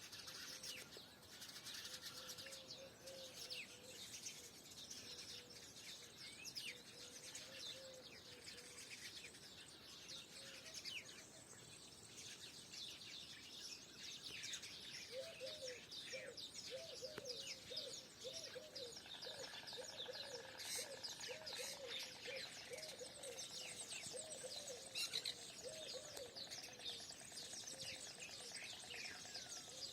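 Morning chorus of many small birds chirping, thick and continuous. About halfway through, a lower bird call starts repeating in quick, evenly spaced notes for several seconds.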